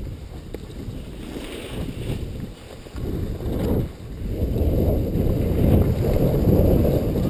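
Wind buffeting a GoPro's microphone as its wearer slides down a groomed ski run, with the low rushing scrape of sliding over packed snow; it grows louder about halfway through as speed picks up.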